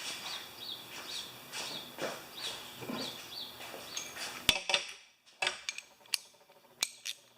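A small bird chirping over and over in the background. About four and a half seconds in, a sharp metallic click is followed by several irregular clicks and taps of a tool being handled.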